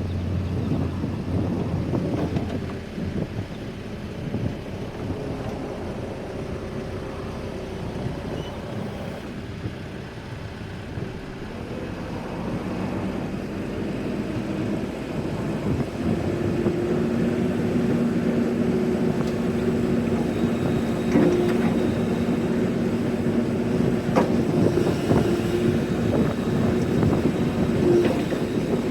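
Case 580N backhoe loader's diesel engine running with a dense rumble; about halfway through it gets louder and a steady whine rises over the rumble, as under higher revs or hydraulic load.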